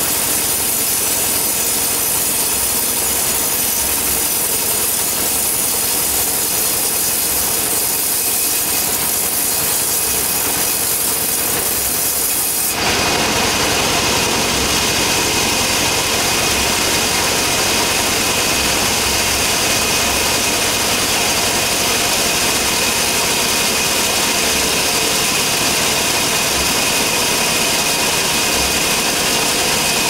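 Engine-driven portable sawmill running steadily while cutting a coconut log, a continuous sawing whine. About 13 seconds in the sound changes abruptly to a fuller, steadier machine drone.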